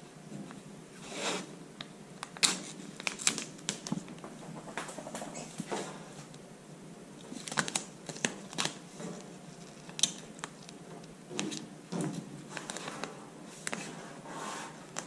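Blue painter's tape being pressed and smoothed by hand along the riveted rub rail of an aluminum jon boat: irregular crinkling, rustling and small sharp taps as fingers work the tape against the metal.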